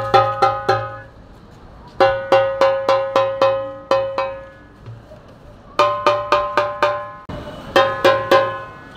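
Egyptian tabla (darbuka goblet drum), freshly fitted with a new Power Beat head, played by hand to test its sound: clear, ringing strokes in four short rhythmic runs with brief pauses between them.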